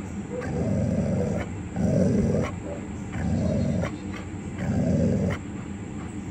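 Golden retriever growling low over his food bowl, four rumbles of about a second each with short pauses between: resource guarding as a grabber tool is held at the bowl.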